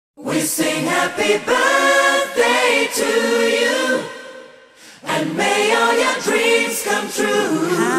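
Music: a song with several voices singing together, choir-like, starting right after a moment of silence. It fades away about four seconds in, and the singing comes back a second later.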